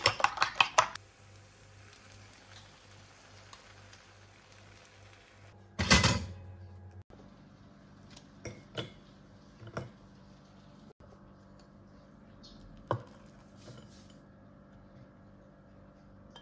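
Hard objects clinking and knocking: a quick run of light taps at the start, one loud sharp knock with a short ring about six seconds in, then a few lighter clinks.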